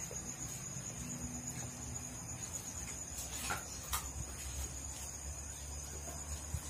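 Steady high-pitched trilling of night insects such as crickets, with a low rumble underneath and a couple of sharp clicks about halfway through.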